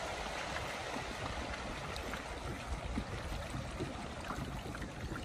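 Water lapping and trickling around a kayak's hull, a steady even wash.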